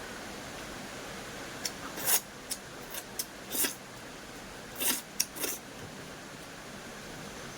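Close-miked eating sounds: a string of short, crisp crunches and mouth noises, bunched in the first two thirds, over a steady hiss from a stream.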